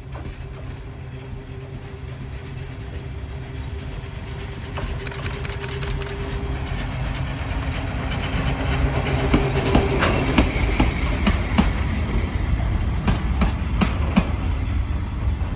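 Toyama Chihō Railway DEKI 12021 electric locomotive hauling two hopper wagons, approaching and growing steadily louder. From about five seconds in, wheels click over the rail joints, louder toward the end. A steady hum fades out about ten seconds in.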